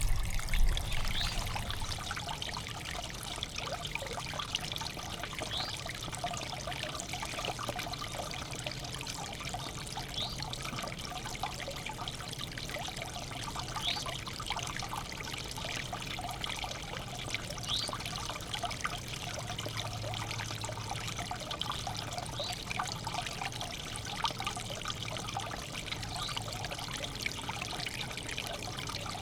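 Backyard bird bath fountain ('bird spa') with water trickling steadily into the basin.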